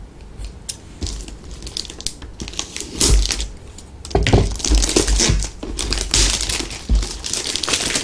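Plastic packaging crinkling and a cardboard figure box being handled while it is unwrapped, in irregular rustles that get louder about three seconds in.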